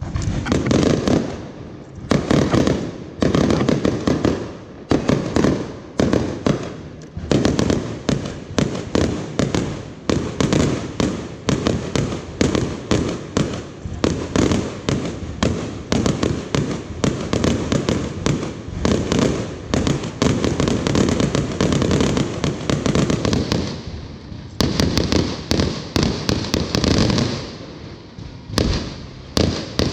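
Fireworks going off in a rapid, dense barrage of bangs and crackles, easing briefly about four-fifths of the way through before building again.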